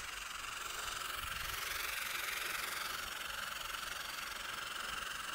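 Steady hiss of water sprayed as a fine mist through three AEM atomizing methanol-injection nozzles in a turbo volute, fed by a 12-volt electric pump during a flow test.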